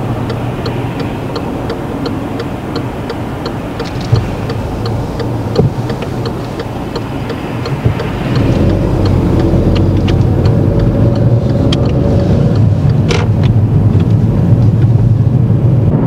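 A car's turn indicator ticking steadily inside the cabin over the engine idling while the car waits to turn right. About halfway through, the engine and road noise rise as the car pulls away and turns, and the ticking stops a few seconds later as the indicator cancels.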